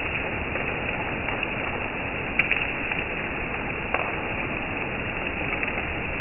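Heavy rain falling on trees, leaves and grass: a steady, even hiss with a few sharp taps, the loudest about two and a half seconds in and another about four seconds in.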